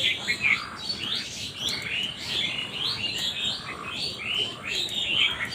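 Birds chirping busily, many short calls overlapping with no break.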